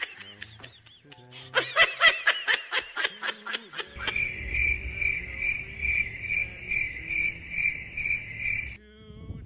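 A burst of quick, high-pitched giggling, then crickets chirping steadily, about two chirps a second, over a low hum for most of the rest.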